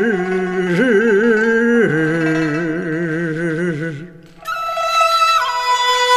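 A man's voice chanting classical Chinese prose in the Tang-tune (唐調) yinsong style, drawing out the final syllable 之 as a long held note with a slow wavering vibrato that ends about four seconds in. An accompanying instrument then plays long held notes, stepping down in pitch once.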